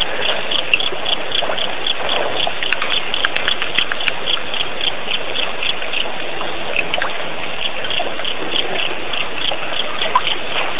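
Night chorus at a waterhole: a steady hiss with a high chirping that repeats evenly, about three times a second.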